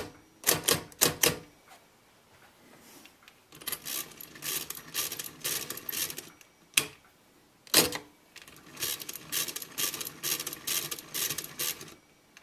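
Facit C1-13 hand-cranked pinwheel mechanical calculator being cranked through a multiplication: two runs of rapid ratcheting clicks as the crank is turned over and over, with a few single loud clacks at the start and between the runs.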